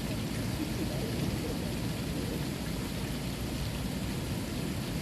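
Water from a fountain splashing and rushing in a steady, even stream.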